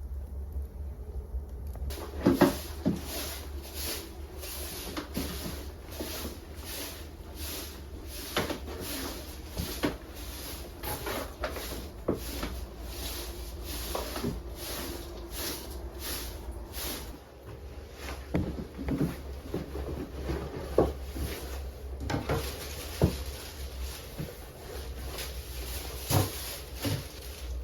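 Irregular clicks and light knocks of things being handled, over a steady low hum.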